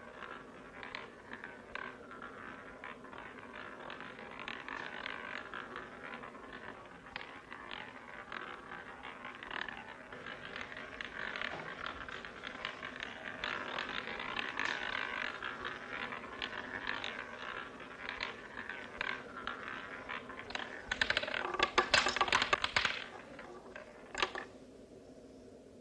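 Roulette ball running around a spinning roulette wheel with a continuous clicking whir that slowly grows louder. About 21 seconds in it clatters loudly over the pocket dividers, gives one last click a second or so later and comes to rest.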